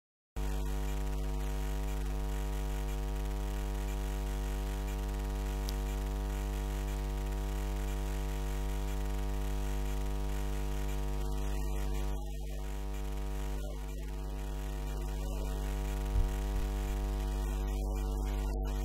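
Steady electrical mains hum with a buzzy stack of overtones, cutting in just after a moment of silence and holding unchanged. A short low bump sounds near the end.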